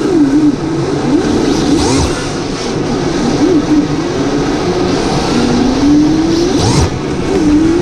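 Electric motor of a radio-controlled drift car whining, its pitch rising and falling as the throttle is worked, with one longer climb past the middle.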